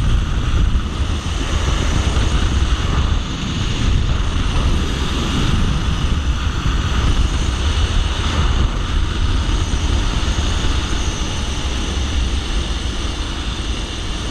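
Steady wind rushing and buffeting the microphone, a heavy low rumble, as from air rushing past on a zipline ride.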